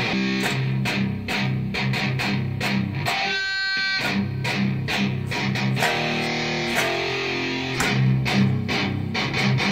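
Electric guitar being played: quick picked notes and chords over steady low notes, with one chord left ringing briefly a little over three seconds in.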